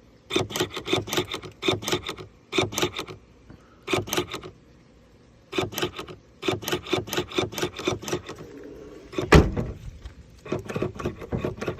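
2016 Cadillac Escalade rear glass latch clattering in repeated bursts of rapid clicks, several a second, stopping and starting again, with one heavy thump about three quarters of the way through. The faulty latch is cycling by itself and will not hold the glass shut.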